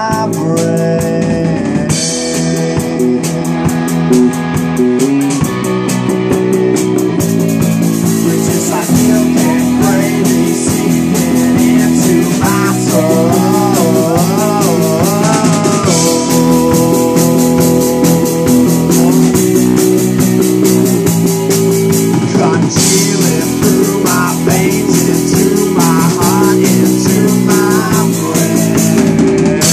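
Live rock band playing: electric guitar, bass guitar and drum kit, with a male vocalist singing.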